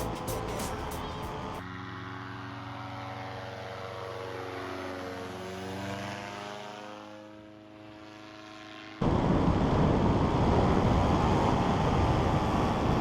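Powered paraglider's propeller engine droning past, its pitch shifting as it flies by and fading. About two-thirds of the way in, the sound cuts abruptly to a much louder, close rush of engine and wind noise.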